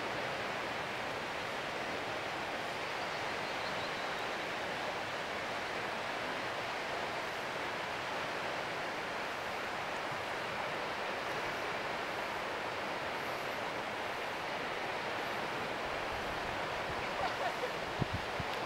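Steady rushing of the Colorado River, an even roar of moving water. A few low thumps come near the end.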